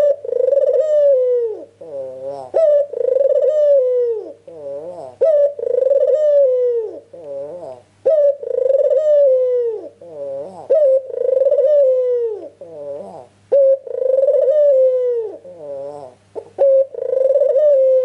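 White Barbary dove (ringneck dove, 'puter') cooing in full voice. It repeats one phrase every two to three seconds: a short clipped note, then a long coo that falls in pitch at its end, then a few shorter falling coos. This is a lure call, meant to make other doves answer.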